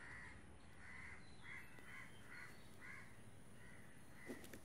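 Crows cawing faintly in the background: a string of short calls, about two a second.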